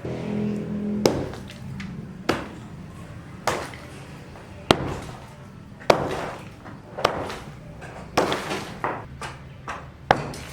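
Hammer blows on a building site, one sharp ringing strike about every second.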